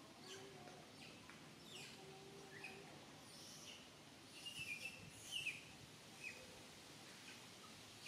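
Faint bird chirps: a scattered handful of short, sharp calls, the loudest clustered a little past halfway.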